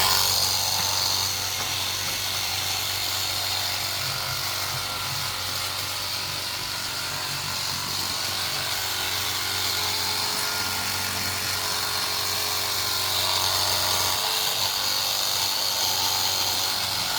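Cordless battery pressure washer running: the pump motor's steady low hum under the continuous hiss of the water jet spraying. The hum drops away about fourteen seconds in while the hiss carries on.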